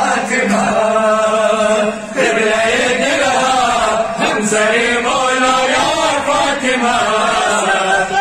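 A male reciter chanting a noha, a Shia mourning lament, in a sung melodic line, with other men's voices joining in.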